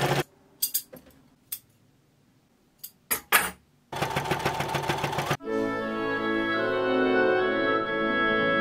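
A domestic sewing machine stitches a hem in short runs. It stops briefly at the start, then a few light clicks sound. It runs again for about a second and a half starting about four seconds in. After that, background music with held keyboard notes takes over.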